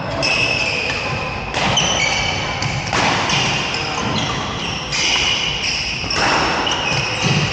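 Badminton rally in an echoing sports hall: sharp racket-on-shuttlecock hits every second or two, with high squeaks of court shoes on the floor and footsteps between them.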